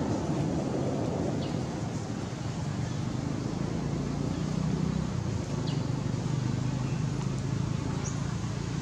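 Steady low outdoor rumble, with a few short, faint high chirps about a second and a half, six and eight seconds in.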